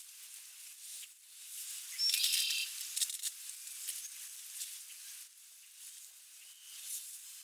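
Soft rustling and small clicks of a red-tailed hawk tearing at a rabbit carcass in dry grass, over a steady high hiss. About two seconds in comes a short pitched call, the loudest sound.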